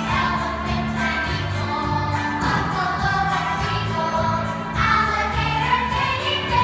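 Youth choir singing a medley in unison and harmony over an accompaniment with a bass line and a steady beat.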